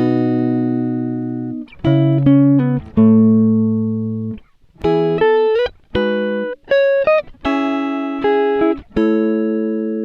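Music: a plucked-string melody of separate notes and chords, each struck sharply and fading away, one after another.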